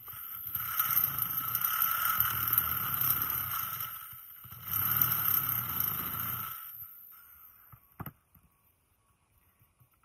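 Electric drill with a step drill bit cutting a hole through the metal top of an old gas cylinder shell, a steady whining run that eases off briefly about four seconds in, then runs again and stops near seven seconds. A single sharp click follows about a second later.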